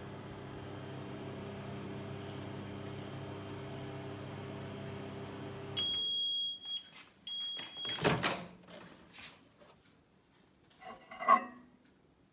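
Miele M 8261-1 built-in microwave oven running with a steady hum that stops a little before halfway, followed by two long, high beeps signalling the end of the cycle. A sharp clack comes right after the beeps, and a louder knock comes near the end.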